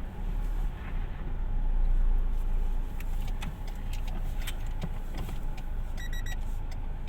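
Car engine running with a low rumble as the vehicle reverses, swelling briefly early on, with a few small clicks and a short high beeping about six seconds in.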